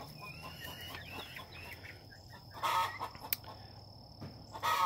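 Young Rhode Island Red chickens clucking and chirping softly, a few short calls in the first second or so. Two brief scuffing noises follow, about two and a half and four and a half seconds in.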